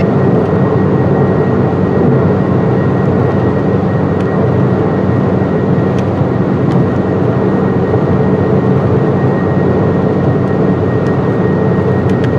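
Loud, steady rushing noise with a faint thin high tone running through it. It cuts off suddenly at the end. It fills the slot between the radio programme and the Emergency Alert System child abduction message.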